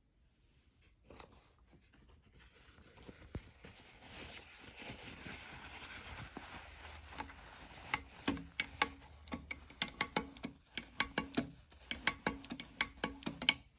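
A sewing machine being worked by hand: rustling handling noise, then irregular sharp mechanical clicks and knocks, a few a second, from about eight seconds in.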